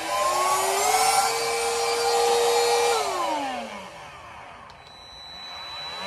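Xiaomi Coclean portable handheld vacuum cleaner running: its motor whine climbs to a steady pitch and holds. About three seconds in it is switched off and the whine falls away as the motor spins down. A click near the end, then the motor starts up again with a rising whine.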